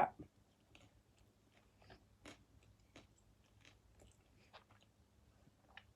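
Faint chewing of pizza: soft, irregular mouth clicks spaced a fraction of a second to a second apart.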